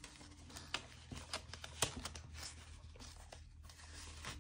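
Paper bills and cash envelopes being handled: faint rustling with scattered small clicks and ticks.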